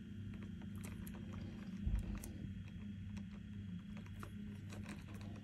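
Faint handling sounds: light clicks as multimeter test probes are held against the terminals of a small sensor plug, with a dull knock about two seconds in, over a steady low hum.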